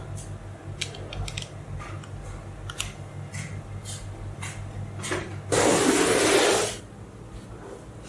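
Small magnetic balls clicking sharply, a few separate clicks, as a chain of them is pressed into place on a block of magnet balls, over a steady low hum. About five and a half seconds in comes a loud, harsh noise lasting just over a second, the loudest sound here.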